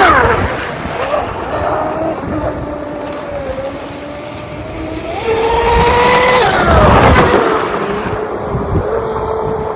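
Pro Boat UL-19 RC hydroplane's brushless motor whining as it runs. The pitch falls steeply right at the start, climbs again about five seconds in, then falls steeply once more a little later, as the throttle comes up and off or the boat passes.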